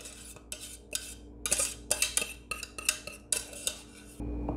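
Metal saucepan clinking and scraping in a string of short, irregular strokes as thick gravy is poured out of it over meat patties in a casserole dish.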